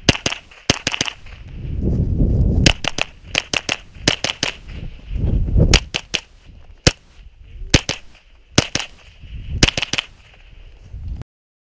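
Beretta ARX-160 rifle firing a course of fire: about thirty sharp shots in quick pairs and strings, with short pauses of low rumbling noise between them. The sound cuts off abruptly near the end.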